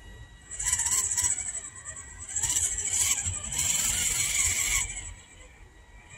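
Electric motor and gearbox of an RGT 1/10-scale RC crawler with a D90 body, driven in three throttle bursts of under a second each. The bursts are high-pitched.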